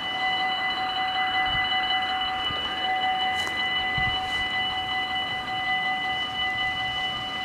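Dutch level-crossing warning bells ringing continuously as a steady, high, multi-tone ring that signals an approaching train. There is a faint low knock about four seconds in, as the barriers start to come down.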